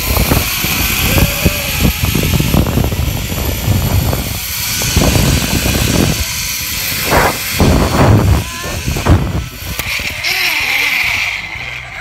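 Strong rushing wind buffeting a handheld phone's microphone during a fast zip-line descent, in heavy irregular gusts under a steady high hiss.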